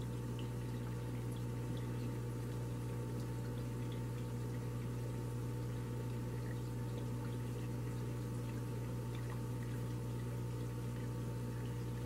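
Water from an aquarium waterfall feature trickling and splashing steadily into the tank, with scattered faint drips, over a steady low hum.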